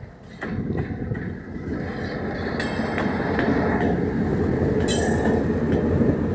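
Train running on the track, its rumble building about half a second in and growing louder. A few sharp clicks of the wheels over rail joints come through near the middle and again later.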